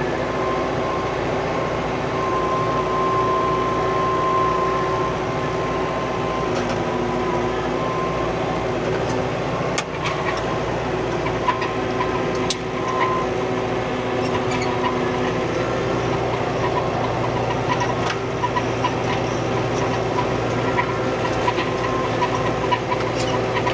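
Old farm tractor engine running steadily under way, heard from inside the cab. A thin steady whine rides over it for the first few seconds, and a few sharp knocks come through about halfway.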